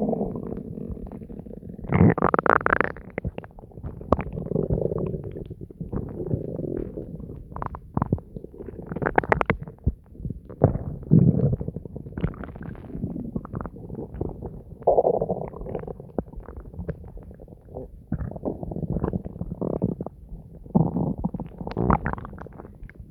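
Human stomach gurgling and rumbling during digestion, recorded close up and distorted: an irregular string of gurgles and rumbles of varying length, with short sharp pops between them.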